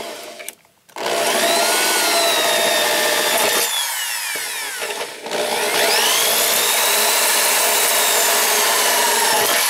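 Electric drill drilling out a pop rivet through a metal hinge leaf to remove it. After a short blip, the drill runs steadily from about a second in, its whine rising and falling in pitch as the bit cuts, easing briefly about halfway.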